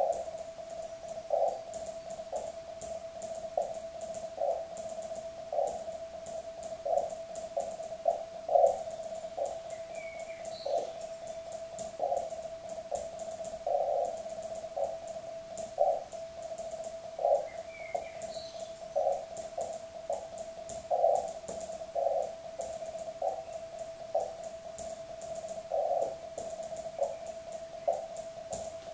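Morse code (CW) on the 40 m amateur band heard through a ham radio transceiver: a single steady mid-pitched tone keyed in dots and dashes, over a fainter continuous tone at the same pitch, with light static crackle.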